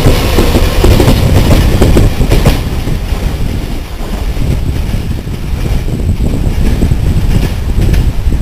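Taiwan Railway Taroko Express tilting electric train passing close at speed, its wheels clattering over the rail joints for the first couple of seconds, then a steady rumble as it draws away.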